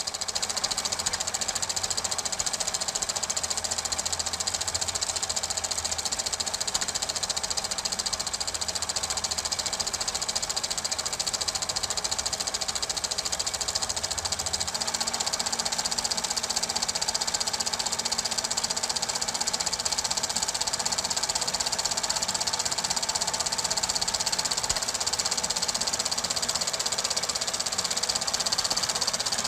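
Super 8 film projector running, a steady fast mechanical clatter with hiss; its low hum shifts in pitch about halfway through.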